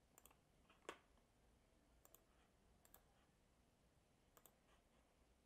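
Faint computer mouse clicks, mostly in quick pairs, a few times over several seconds, with one slightly louder single click about a second in; otherwise near silence.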